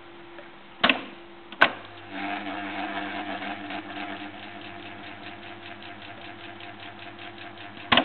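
RFT Smaragd reel-to-reel tape recorder: its piano-key controls click about a second in and again half a second later, then the tape spools at speed with a rapid fluttering tick over the steady motor hum. Another key clicks near the end.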